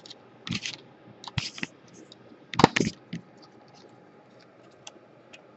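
Handling noise from a partly dismantled laptop: a few short plastic clicks and scrapes as the DC power jack and its wires are worked into place, the loudest just under three seconds in.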